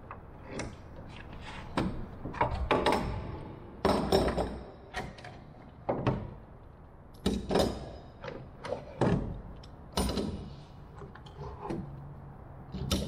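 Small clamps being unclamped from a wooden frame and set down on a wooden workbench: a string of irregular clacks and knocks, some coming in quick clusters.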